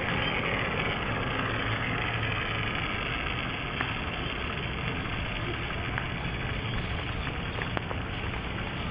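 Flying fox trolley pulley rolling along its cable: a steady rumbling whir with a faint whine that falls in pitch over the first few seconds as the rider slows, and a few light clicks.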